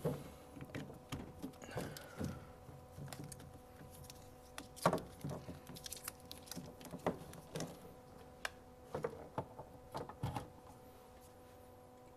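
Cable plugs being handled and pushed into the sockets of a security-camera recorder box: a string of light plastic clicks and knocks, the loudest about five seconds in, that stop about ten and a half seconds in. A faint steady hum runs underneath.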